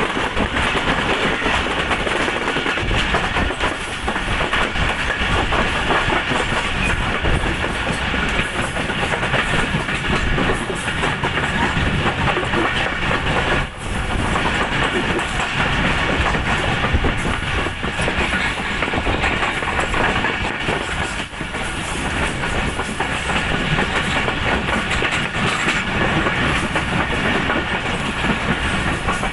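A Pakistan Railways passenger coach running at speed, heard from its side: a steady rumble of steel wheels on the rails, with a constant clickety-clack from the rail joints and the coach rattling.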